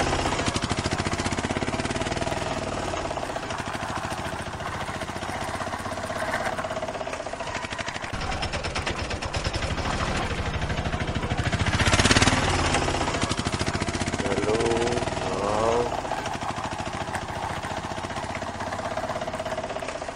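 Plastic toy auto-rickshaw pushed by hand along a rough concrete ledge, giving a continuous fast rattling clatter as it rolls, louder for a moment about twelve seconds in.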